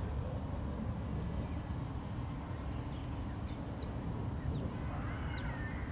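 Faint, short, high peeps of Canada goose goslings, scattered through the second half and twisting once about five seconds in, over a steady low outdoor rumble.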